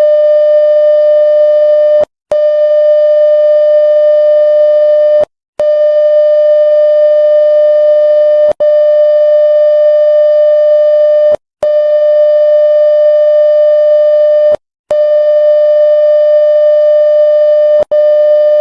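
Emergency alert system test tone: a loud, steady, buzzy tone broken by brief dropouts about every three seconds.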